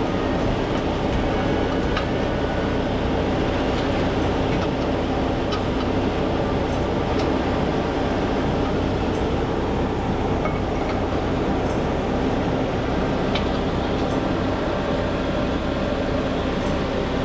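Heavy-equipment engine running steadily at a constant pitch, with a few light knocks over it.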